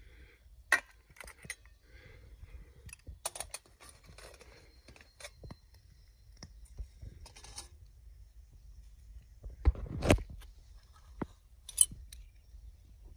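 Scattered clinks, taps and scrapes of aluminium camp cookware and a Trangia alcohol stove being handled, with louder knocks about ten seconds in and a sharp clink soon after.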